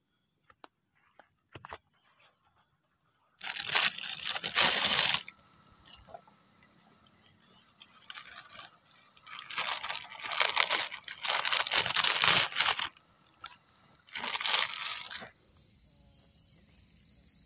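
Plastic packaging crinkling and tearing in three loud stretches, each starting and stopping sharply, with a faint steady insect trill behind.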